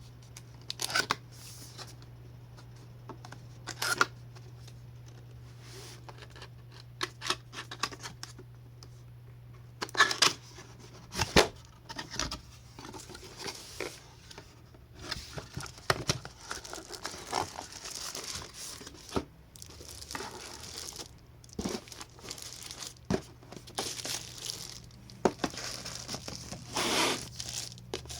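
Keyboard packaging being handled and unwrapped: irregular crinkling, rustling and tearing of wrap, mixed with scattered small knocks. A faint steady low hum runs underneath.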